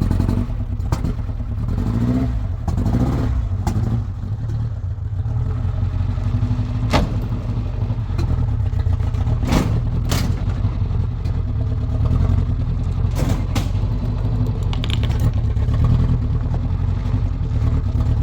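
1986 Ford Ranger's 2.3-litre four-cylinder engine running rough after sitting, just revived with its spark plugs reinstalled, with several sharp clacks partway through.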